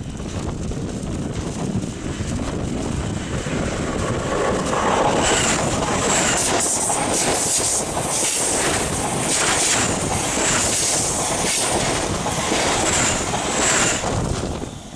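CPTM electric commuter train passing directly over the rails, heard from beneath it: a rumble that builds over the first few seconds, then loud rapid wheel clatter over the rail joints with recurring high-pitched wheel squeals. It drops off suddenly near the end as the last car clears.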